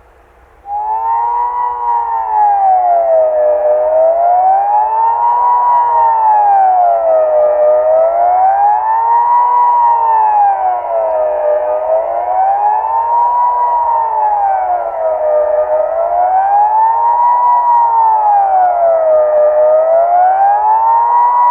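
Swiss civil-defence warning siren sounding the General Alarm signal, a loud wail that rises and falls smoothly about every three and a half seconds. It starts up under a second in.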